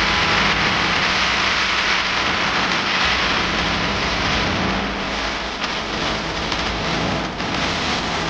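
Steady hiss of rain falling on wet paving.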